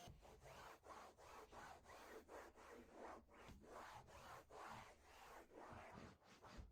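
Rhythmic back-and-forth rubbing strokes against a surface, about three a second.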